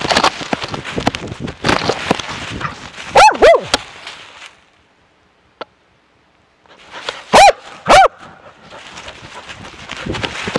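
Bear-baying dog barking at a bear, heard from a camera on its own harness: a scuffling rustle of its movement, then two pairs of very loud, sharp barks about three and seven seconds in, with a near-silent pause between them.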